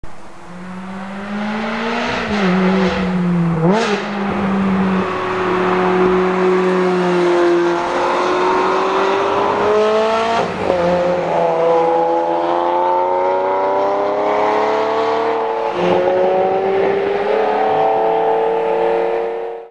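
Ferrari 360 Challenge Stradale's V8 accelerating hard, its note rising steadily in long pulls broken by gear changes a few times. It cuts off abruptly at the end.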